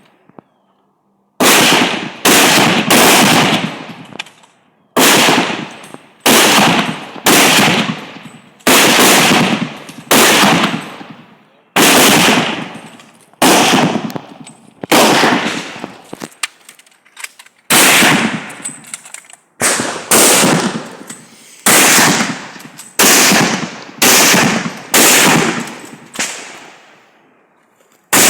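Gunshots fired one at a time at a shooting range, about two dozen in all at roughly one a second with uneven spacing, each followed by a fading echo.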